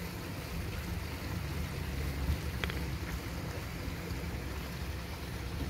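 Steady low rumble and hiss of circulating koi-pond water, with one small click about two and a half seconds in as the plastic cap comes off a dropper bottle.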